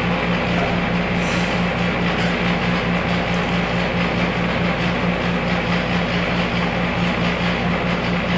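A steady low hum with an even, faint pulsing.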